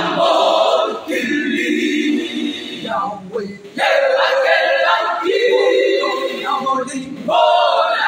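Women's choir singing together in phrases broken by short pauses.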